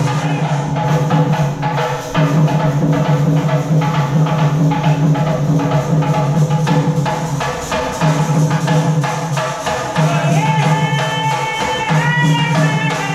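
Music with a steady drum beat and percussion; a melody comes in near the end.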